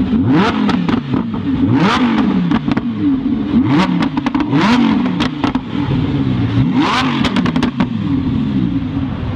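Lamborghini Huracan's 5.2-litre V10 revved in a series of quick blips, the engine note rising and falling again and again, with sharp cracks near several of the rev peaks.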